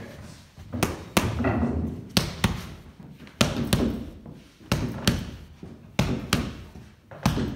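Boxing gloves smacking into leather focus mitts, sharp slaps mostly in quick one-two pairs about once a second, each with a short room echo.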